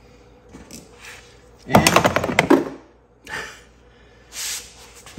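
A burst of rapid metallic clattering about two seconds in, followed by a couple of lighter knocks, with no motor running. It sounds like a small tool or part being dropped and clattering on the ATV's frame and skid plate, a mishap the mechanic greets with a sarcastic "Love when that happens."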